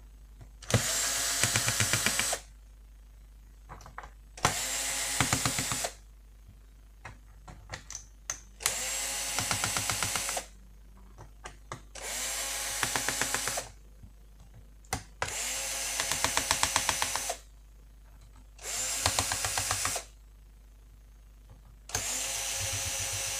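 Cordless drill-driver running in seven short bursts of one to two seconds each, unscrewing the screws from a laptop's plastic bottom case. There is a rapid ticking within each run, and light clicks in the gaps as the bit is set on the next screw.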